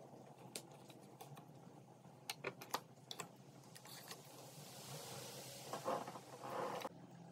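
Wooden popsicle sticks clicking and tapping against each other and the wooden board as they are handled. This gives way to a stretch of scraping and rustling as the sticks are slid and shuffled, which cuts off suddenly near the end.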